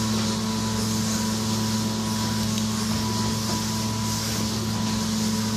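Loose cellulose insulation being blown through a hose: a steady rush of air and fibre over the even hum of the blowing machine.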